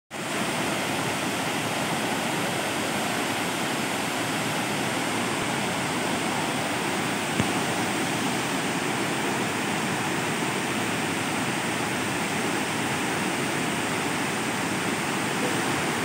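Large waterfall cascading over stepped rock ledges and plunging into a pool: a steady, unbroken rush of falling water.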